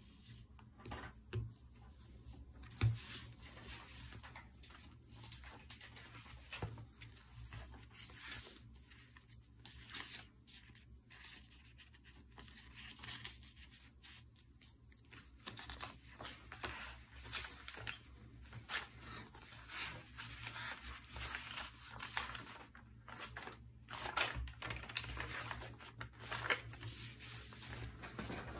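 Vinyl stickers being peeled off their backing and pressed onto journal pages: irregular crackly peeling and paper rustling, with a few sharp clicks.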